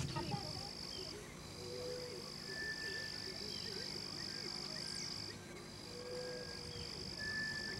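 Outdoor insect chorus: a steady high-pitched insect trill that breaks off briefly twice, with a few faint short calls underneath.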